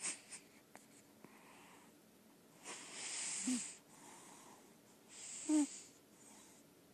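Lilac point Siamese cat snoring: two louder noisy breaths, about three and five and a half seconds in, each ending in a short squeaky wheeze, with softer breaths between them.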